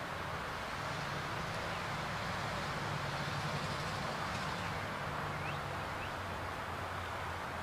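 Steady outdoor background sound: a constant low hum under an even hiss, with a couple of faint, short, rising bird chirps a little past the middle.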